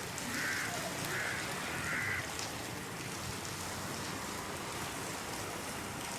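A bird calling three times in quick succession, short calls about half a second apart, over a steady background hiss that carries on after the calls stop.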